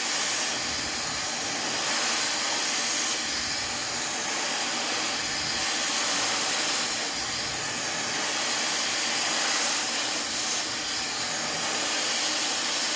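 Fentgo negative-ionic hair dryer blowing steadily on its level 2 speed setting, a higher-powered, slightly louder airflow, with small swells in loudness.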